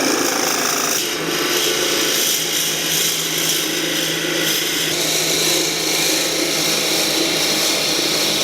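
A power drill boring into a purpleheart hardwood handle blank, deepening the hole for a screwdriver's hollow stem. It runs as a steady noise of the bit cutting wood over a constant motor hum.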